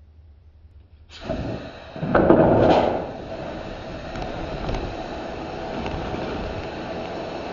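Flour-laden compressed-gas jet blasting up out of a lab nozzle as a model volcanic eruption jet. It starts about a second in, is loudest in a burst around two seconds in, then settles into a steady hiss.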